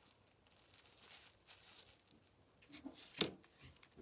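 Faint handling sounds of small craft pieces: a soft rustle about a second in, then a few light clicks and taps, the sharpest about three seconds in.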